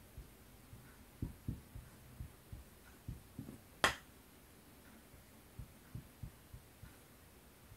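Dry-erase marker writing on a whiteboard: a string of soft, low knocks as each stroke of a character is pressed onto and lifted off the board, with one sharper click about four seconds in.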